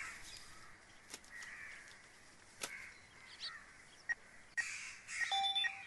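Quiet street ambience with crows cawing in the distance, a couple of light clicks, and a run of short electronic beeps near the end.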